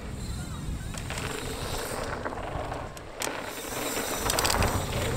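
Downhill mountain bike riding down a dirt trail: tyres rolling over dirt, with the rattle and knocks of the bike over rough ground, getting louder about four seconds in.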